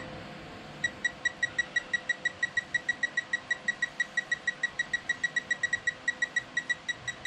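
Electronic torque-measuring device beeping: a rapid run of short, high, pure beeps, about six a second, with a few brief gaps, starting about a second in.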